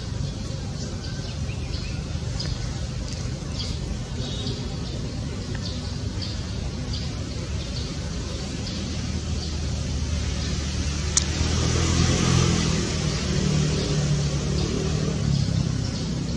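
A motor hums steadily and grows louder about ten seconds in. Short high chirps sound through the first half, and there is a single sharp click near the middle.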